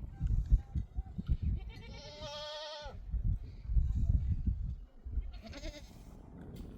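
A single wavering bleat from a farm animal about two seconds in, dropping in pitch as it ends, with a fainter call a few seconds later. Irregular low thumps and rumble run underneath.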